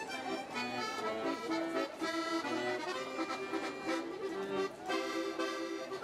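Instrumental background music: a tune of quickly changing notes with no voice.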